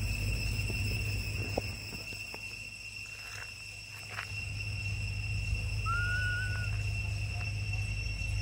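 Outdoor ambience with a steady high-pitched insect-like drone over a low rumble, and a few faint clicks. About six seconds in there is one short call that rises and then holds level.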